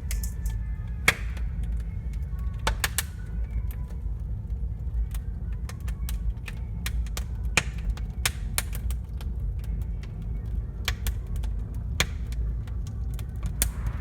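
Wood fire crackling in a fireplace: irregular sharp pops and cracks over a steady low rumble.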